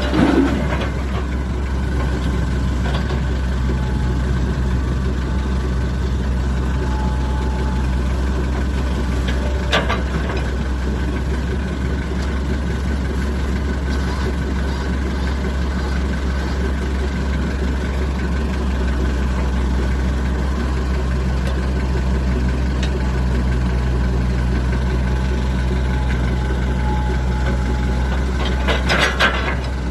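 Diesel engine of an earthmoving machine running steadily at idle, with a few short knocks: one at the start, one about ten seconds in and several near the end.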